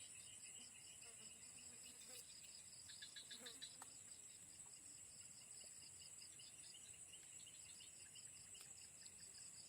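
Faint insects calling: a steady high-pitched trill overlaid with chirps repeating a few times a second, and a short faster run of chirps about three seconds in.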